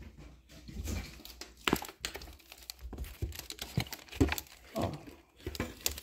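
Vinegar poured over baking soda sprinkled on towels in a washing-machine drum, starting to fizz, with irregular small crackles and rustles.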